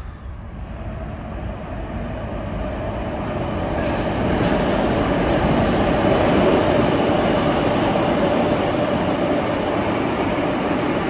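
New York City subway train running into the station: the rumble grows louder over the first four seconds, then holds loud and steady with a sustained whine.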